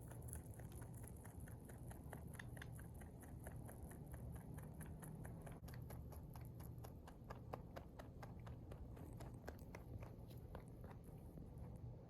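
A rabbit chewing hay: a rapid run of faint, crisp crunching clicks, several a second, over a steady low hum.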